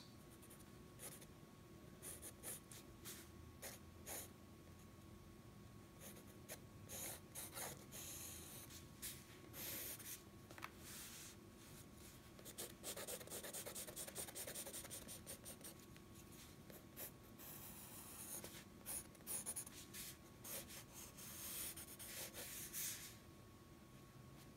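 Graphite pencil scratching on sketchbook paper, faintly: short separate strokes, with longer runs of quick back-and-forth hatching strokes in the second half as a face of the drawing is shaded.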